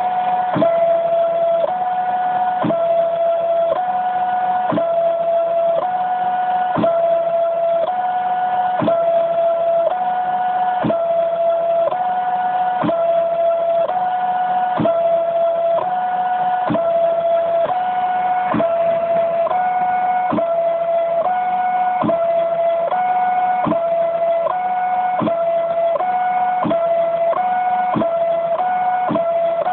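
Stepper motors of a home-built CNC machine whining while it 3D-probes a carved surface. The tone jumps between a few close pitches every half-second or so as each move starts and stops, with a click at many of the changes.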